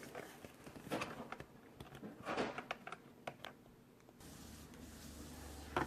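Scattered small clicks and rustles of plastic vacuum parts and a screw being handled while the handle screw is fitted. A faint steady low hum sets in about four seconds in.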